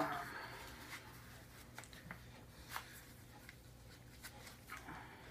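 Faint rubbing and scuffing of a neoprene knee sleeve being tugged and smoothed into place over the knee by hand. There is a brief scuff at the start, then scattered soft scrapes.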